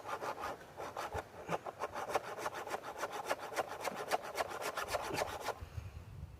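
Round chainsaw file scraping back and forth across a chain's cutter tooth in quick, even strokes, about four a second, stopping about five and a half seconds in.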